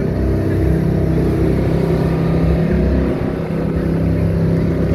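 Jet boat engine running steadily under way: a loud, low, even drone.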